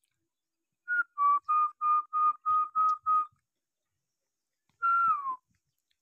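A person whistling to call a pet peacock: eight short, evenly spaced whistle notes, about three a second, then after a pause one longer whistle that falls in pitch.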